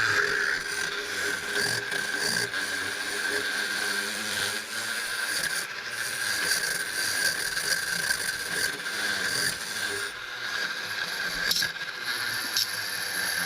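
Small power tool running steadily with a rasping, scraping sound as it cleans old pink residue off a motorcycle cooling-system part.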